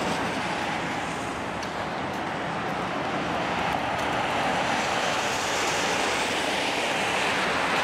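Steady traffic noise from a city street, a continuous rushing hiss of tyres on a wet, slushy road.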